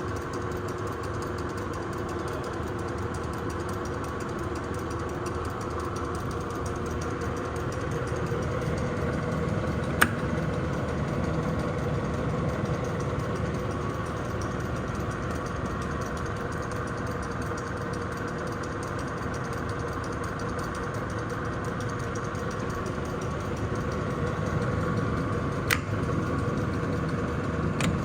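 Harrison VS300 toolmaker's lathe running under power, a steady mechanical drone with a constant hum. A sharp click sounds about ten seconds in and another near the end.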